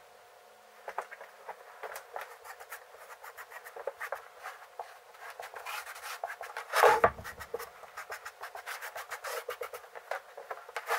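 Hand sanding along the edges of an OSB (Advantech) frame with a sanding block: a run of short, irregular scraping strokes. A single heavier knock comes about seven seconds in, as the frame is shifted on the bench.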